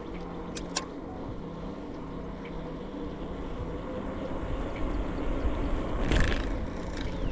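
Bicycle rolling along a trail: a steady rumble of tyres and wind, with two sharp clicks from the bike about half a second in and a louder rush of noise about six seconds in.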